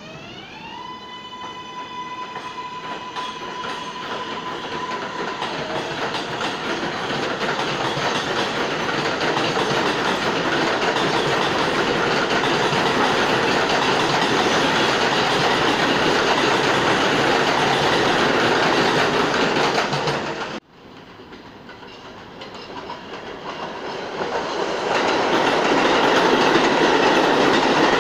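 New York City Subway train on elevated steel track: its electric traction motors give a rising whine that levels off and holds for a few seconds as it pulls away, under a growing rumble and wheel clatter. The sound cuts off abruptly about two-thirds of the way through, and then a train's rumble builds again toward the end.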